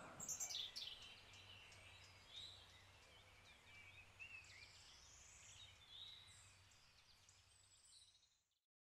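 Faint outdoor garden ambience of birds chirping, many short calls and little rising and falling notes, over a low steady hum, fading out about eight seconds in.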